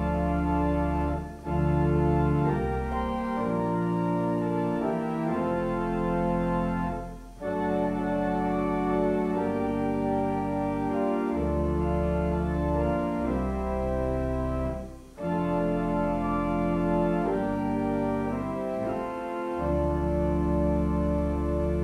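Church organ played at the console: sustained chords over a held pedal bass, in phrases with brief breaks between them.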